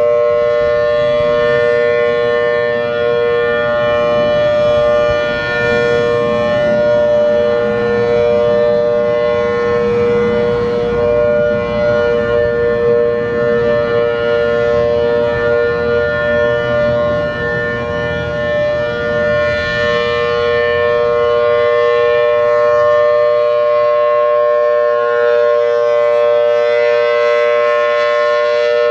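Federal Signal Thunderbolt 1000 outdoor warning siren sounding its steady Alert signal: a held two-note chord from its 4/5-port rotor, unbroken throughout. The loudness swells and fades slightly as the siren head rotates.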